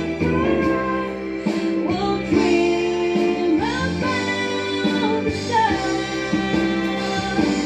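A woman singing solo into a microphone, holding long notes that slide between pitches, over steady instrumental backing music.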